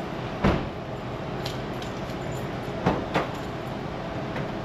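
An ambulance's door latches and doors clunking and clicking over a steady low hum: a heavy thump about half a second in, fainter clicks, then two metal clunks close together near three seconds in as the rear door is unlatched and swung open.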